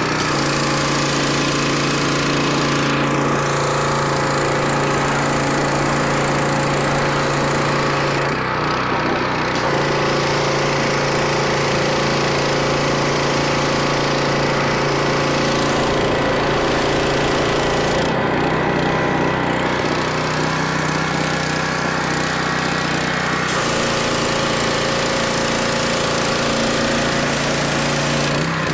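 Predator 212cc single-cylinder gas engine of a pressure washer running steadily under load, with the high-pressure water jet from the wand hissing over it. The engine runs as a sound machine again now that the old gas has been cleaned out of its carburetor bowl.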